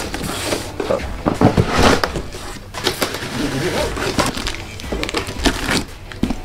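Plastic packing straps cut with scissors and pulled off a cardboard box, with irregular rustling and scraping of strap and cardboard; scissors work at the box top near the end.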